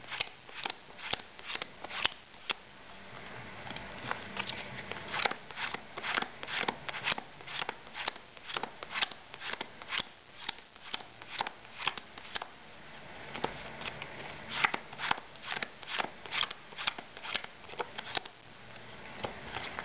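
Playing cards being dealt one at a time from the hand onto two piles, each card giving a short snap, about two to three a second.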